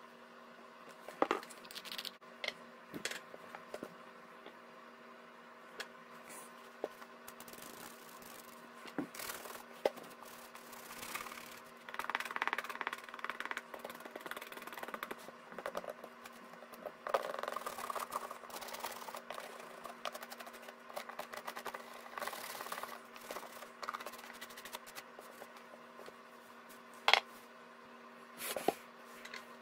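Toothbrush scrubbing the sole seam of a leather riding boot in scratchy stretches, with scattered knocks and taps as the boot and brushes are handled and set down. A steady low hum runs underneath, and two sharper knocks come near the end.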